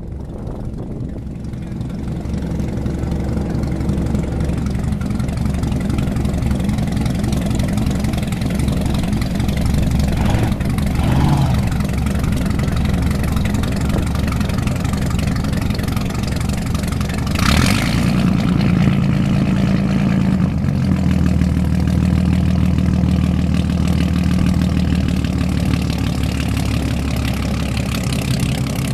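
Inboard boat engine running steadily at low speed, growing louder over the first few seconds, with a brief rush of noise about two-thirds of the way through.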